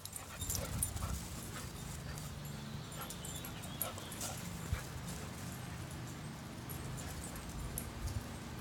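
Two dogs running and playing chase on a grass lawn: faint dog noises with scattered light clicks and soft thuds, over a steady low hum.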